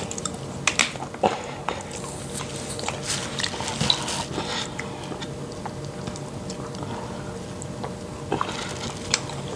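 Close-up eating sounds: chewing with wet lip smacks and sharp mouth clicks, busiest in the first few seconds and then quieter chewing.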